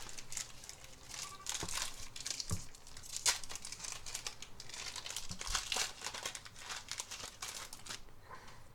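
Foil wrapper of a Yu-Gi-Oh booster pack being crinkled and torn open by hand: a run of irregular crackles, with the sharpest crackle about three seconds in.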